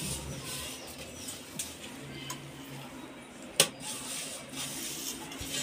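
Aluminium momo steamer tiers and a small steel bowl being handled, with scattered light clinks and one sharp metallic clink about three and a half seconds in.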